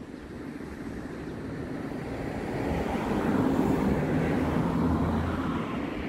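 A road vehicle passing close by, its noise swelling over the first few seconds and easing off near the end.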